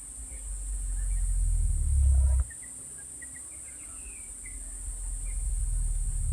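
Southern cassowary booming: a very deep, low rumble swells for about two seconds and stops abruptly, then after a short pause a second boom begins to swell. Faint high bird chirps sound over it.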